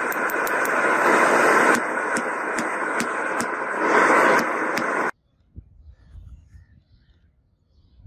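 Hammer strikes on a red-hot steel bar lying on a small steel anvil block, sharp blows about three a second over a loud steady rushing noise. The sound stops abruptly about five seconds in.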